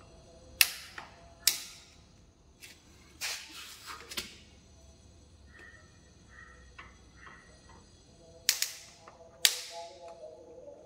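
Sharp knocks in two pairs about a second apart, one pair near the start and one near the end, with a scattering of lighter clicks and knocks between them.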